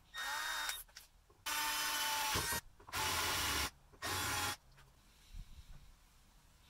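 Compact cordless drill with a twist bit run in four short bursts, drilling inside the steel socket of an old slick chisel. Each burst starts with the motor whining up to speed, and the longest lasts about a second.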